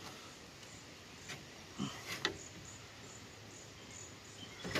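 Faint outdoor background with a few light clicks and taps, one about a second in and a couple around two seconds in, from hands and a small tool working the fittings of a car radiator as it is set into the engine bay.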